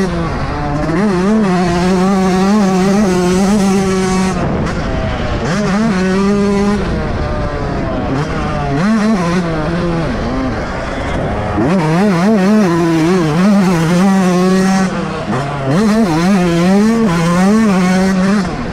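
Yamaha YZ125 single-cylinder two-stroke motocross engine ridden hard, held at high revs for stretches with its pitch wavering, then dropping off the throttle and climbing back up again several times, with wind rushing past the bike.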